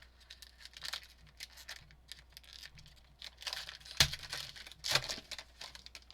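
Trading cards and their packaging being handled: light rustling, sliding and crinkling, with a sharp snap about four seconds in.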